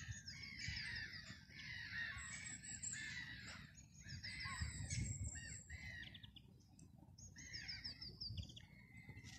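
Several birds calling in quick, varied chirps and short rapid trills, over a low rumble.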